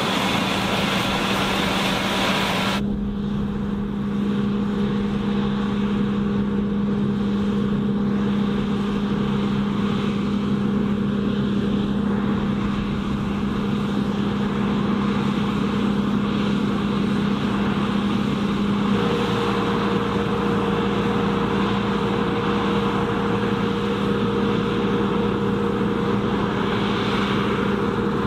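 Diesel engine of heavy farm machinery running steadily under load during wheat harvesting, a constant low hum with machinery noise over it; the sound changes abruptly about three seconds in and a higher tone joins about two-thirds of the way through.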